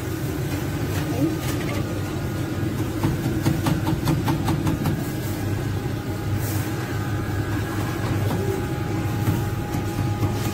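Supermarket background noise: a steady low hum with a faint steady tone above it, and a scatter of light clicks and clatter three to five seconds in.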